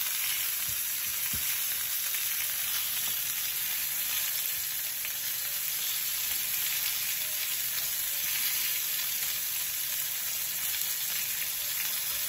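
Chicken and vegetable skewers sizzling steadily in a hot ridged grill pan.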